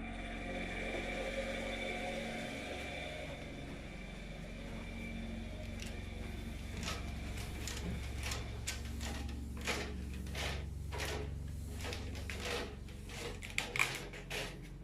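Washing machine running on power from a petrol generator: a steady mechanical hum, joined about halfway through by a series of irregular swishing knocks that grow louder toward the end.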